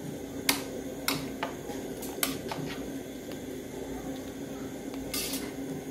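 Spoon knocking and scraping against a large aluminium pot as rice is stirred: several sharp clinks in the first three seconds and a brief scrape about five seconds in, over a steady low hum.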